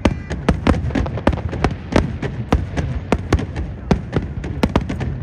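Aerial fireworks going off in a rapid series of sharp bangs, about three or four a second, over a low rumble.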